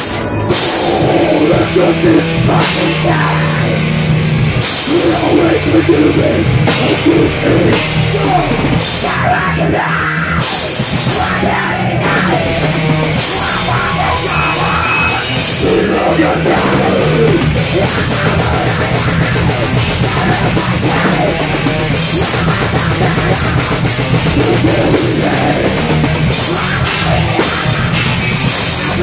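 Heavy metal band playing live at rehearsal: a drum kit with Paiste cymbals drives hard under the guitars. Cymbal crashes come at intervals, then ring almost continuously through the later part.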